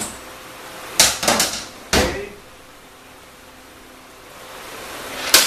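Metal parts and tools being handled and set down on a workbench: a quick rattle of clinks about a second in, a heavier clunk with a short ring just before two seconds, then another sharp knock near the end.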